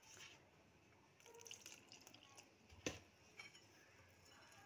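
Faint wet clicks and squelches of a wire whisk mixing gram-flour batter in a glass bowl, with one sharper tap about three seconds in.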